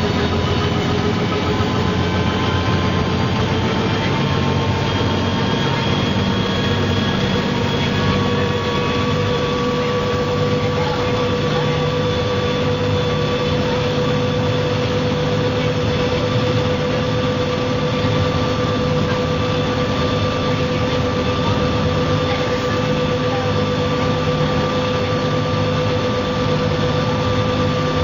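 MCW Metrobus's Cummins diesel engine and driveline running steadily with the bus under way. A whine climbs slightly over the first several seconds, then holds at one pitch.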